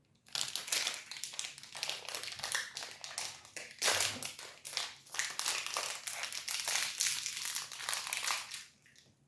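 Plastic protein-bar wrapper crinkling continuously as it is torn open and the bar is pulled out, dying away near the end.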